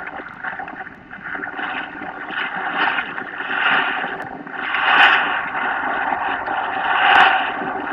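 Rushing wind and water noise aboard a Bayfield 32 sailboat under sail, surging louder a few times.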